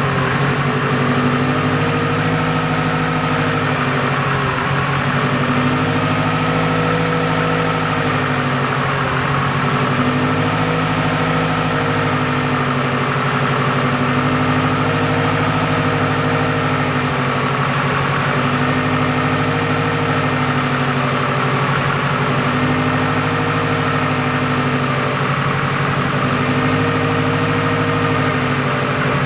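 Freshly built hybrid Subaru EJ257 turbocharged flat-four engine idling steadily on its first start-up. The idle speed rises and falls gently about every four seconds.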